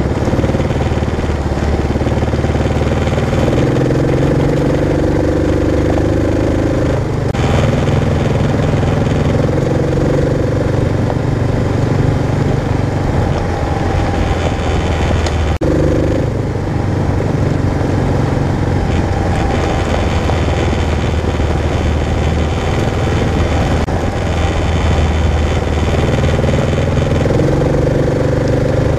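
Kawasaki KLR650's single-cylinder four-stroke engine running steadily while the motorcycle rides along a dirt road. The engine note shifts in pitch a couple of times, about seven and fifteen seconds in.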